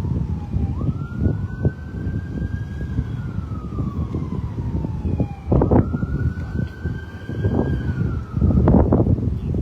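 Emergency vehicle siren on a slow wail: it rises, holds high for a couple of seconds, then glides down, twice, about five seconds per cycle. A loud low rumble runs under it, with heavier gusts around the middle and near the end.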